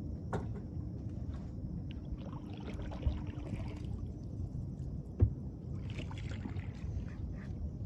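Water lapping against a kayak hull over a steady low rumble. Two dull knocks land about three and five seconds in, the second louder.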